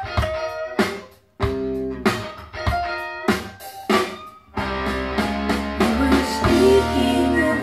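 Recorded music played from vinyl through a 6L6 tube amplifier and Tannoy Precision 6.2 speakers, in an instrumental passage. Guitar chords are struck and left to ring with brief gaps between them. About four and a half seconds in, a fuller band with bass and drums carries on without pause.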